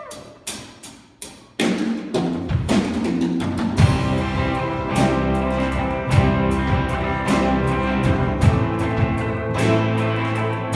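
Live band warming up: a few separate drum and cymbal hits, then about a second and a half in the full band comes in, with a drum kit keeping a steady beat over sustained low notes.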